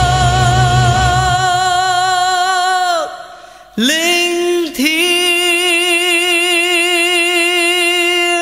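Music with a solo voice singing long held notes with wide vibrato. The low backing fades out after about a second; the first note tails off about three seconds in, a short note follows, then another long note is held.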